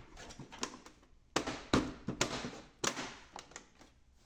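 Plastic control panel of an HP Officejet 6500 printer being pressed and snapped into place on the printer body: a series of sharp plastic clicks and knocks, the loudest between about one and three seconds in.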